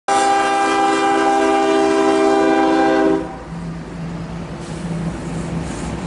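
Diesel freight locomotive's air horn sounding one long chord at a grade crossing, cutting off about three seconds in, followed by the rumble of the locomotives rolling past.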